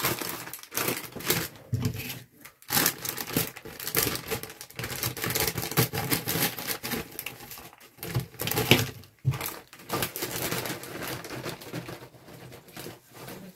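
Plastic bag of mixed salad leaves crinkling and rustling as it is handled, cut open with scissors and the leaves shaken out, with many small crackles and clicks.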